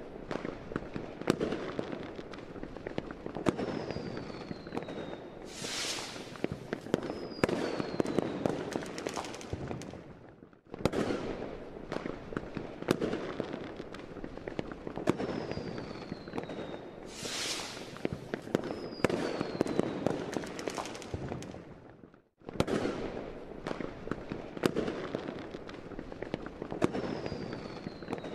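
Fireworks: dense crackling and banging, with a pair of thin whistles falling in pitch and then a short fizzing hiss. It is a recorded fireworks sound effect on a loop that cuts off and starts over about every eleven and a half seconds.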